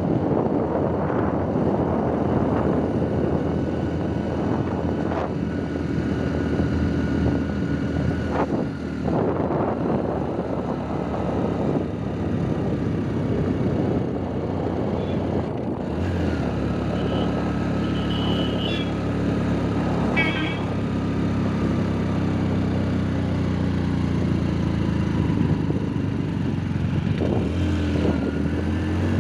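Motorcycle engine running steadily at riding speed, with wind rushing over the microphone. The wind noise is heavier in the first half; from about halfway the engine's steady hum comes through more clearly.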